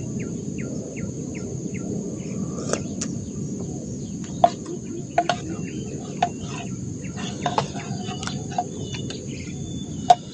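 Insects calling in one steady high tone, with short bird chirps, over a steady low background rumble. From about four seconds in, a spoon clinks sharply against a metal bowl several times.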